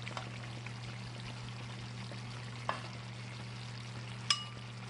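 A serving spoon clinking against a white ceramic bowl as braised carrots are spooned into it: a light tap a little past halfway, then a sharp clink that rings briefly near the end. A steady low hum runs underneath.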